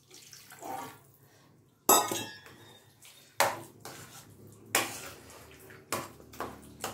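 Steel spoon clinking and scraping against a stainless steel pan while milk is mixed into mashed cooked rice, with a sharp clink roughly every second from about two seconds in.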